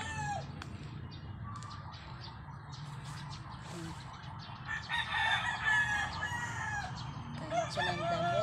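Rooster crowing in the background: one long crow about five seconds in and further arching calls near the end.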